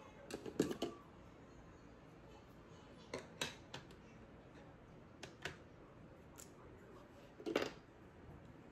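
Small makeup items and cases being handled and set down: short clicks and clatters in several clusters, the loudest about half a second in and near the end.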